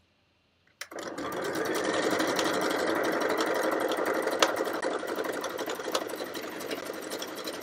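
Electric domestic sewing machine starting up about a second in and running steadily at speed, easing off slightly toward the end. It is stitching a triple straight stitch, the stitch that goes back and forth over each stitch.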